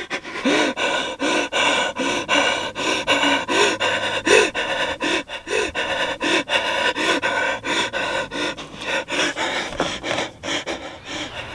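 A man panting fast and hard, about two breaths a second, in panic.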